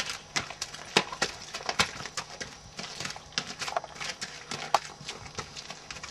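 Thoroughbred stallion's hooves clip-clopping at a walk on a muddy gravel track, a string of sharp, uneven hoofbeats.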